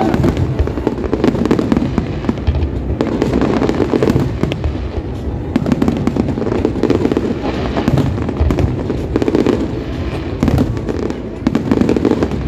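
Fireworks display going off: a dense, continuous run of overlapping bangs and crackles.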